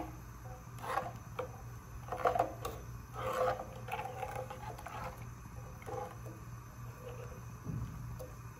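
A metal ladle stirring liquid in an aluminium saucepan, scraping and knocking against the pan in irregular strokes, over a steady low hum.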